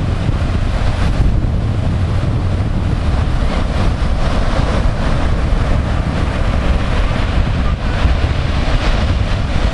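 Wind blowing across the camera microphone, a steady low rumble, over the constant wash of breaking ocean surf.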